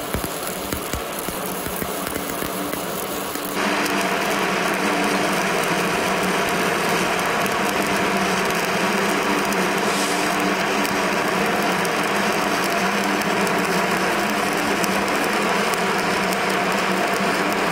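Stick-welding arc crackling and hissing steadily as a bead is run on steel plate; it gets louder about three and a half seconds in.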